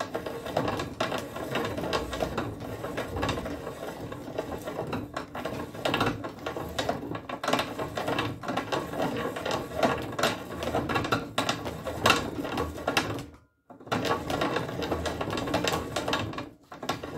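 A reamer being turned inside a rifle barrel bore, cutting metal: a steady scraping with rapid clicks and chatter. It breaks off briefly about thirteen and a half seconds in.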